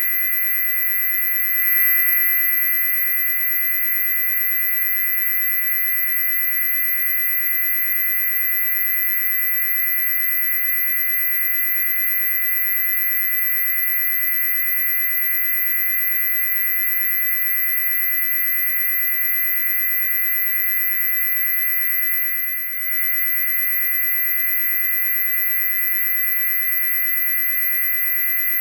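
Loud, steady, shrill electronic tone made of several pitches held at once, the highest a piercing whine on top. It swells slightly about two seconds in and dips for a moment about three-quarters of the way through.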